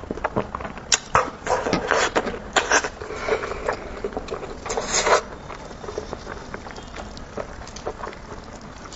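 Close-miked eating sounds: meat being bitten, torn and chewed off a cooked sheep's head, with wet smacks and irregular clicks. The louder bursts come in the first five seconds, then the chewing goes quieter and sparser.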